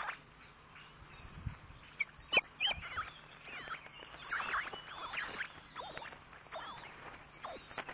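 Ospreys calling: a series of short, high chirps that rise and fall, coming in clusters, the loudest a little over two seconds in.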